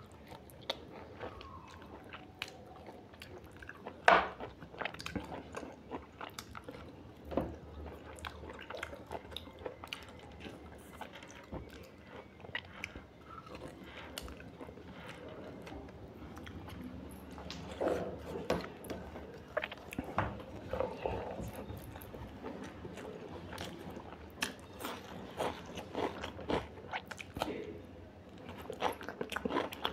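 Close-up eating sounds of a mutton curry meal: a person biting and chewing, with irregular wet clicks and crunches and one sharper, louder click about four seconds in.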